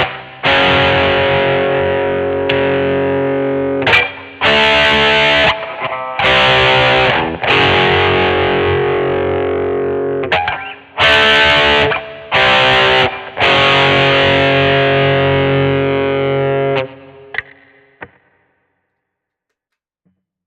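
1982 Vantage VE-550 electric guitar played with distortion, a series of chords each struck and left ringing for a second or two with short breaks between. The last chord dies away about seventeen seconds in, leaving silence.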